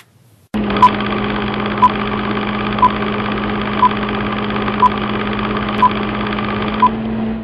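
Old-film countdown sound effect: a steady projector-like whirr and hum with a short high beep once a second, seven beeps in all, marking the numbers of a countdown leader. The whirr and beeps stop together near the end.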